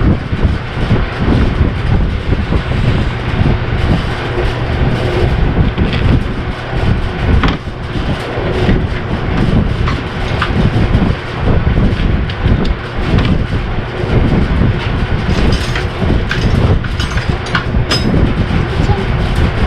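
Mazda MPV's V6 engine running at idle with an uneven, stumbling beat and scattered clicks: cylinder 4 misfiring, which the owner puts down to a poor injector connection.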